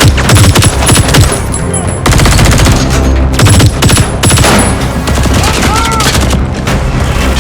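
Rapid automatic gunfire, shots following each other in quick bursts, over a film score.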